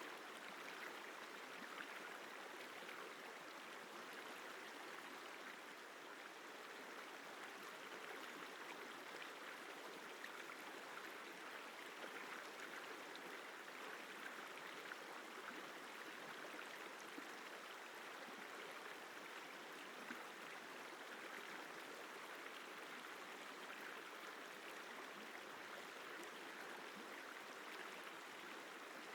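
The Isar River flowing: a steady, even rush of running water.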